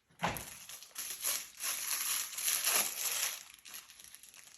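Plastic packaging being crinkled and torn open by hand, with a sharp thump near the start, then bursts of rustling that fade toward the end.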